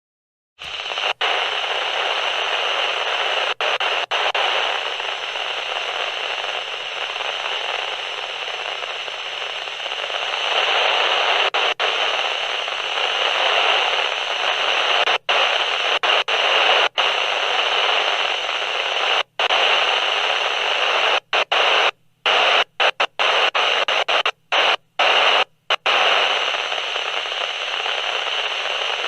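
Walkie-talkie radio static: a steady, loud hiss of open-channel noise that starts about half a second in and cuts out briefly again and again, most often near the end.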